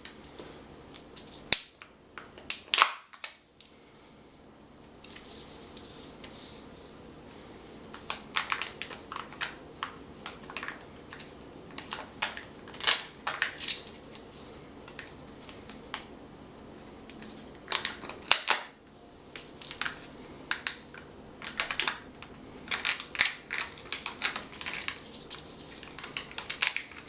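A Kinder surprise egg being opened by hand: an irregular run of crinkles, clicks and snaps from its wrapper and shell, in clusters.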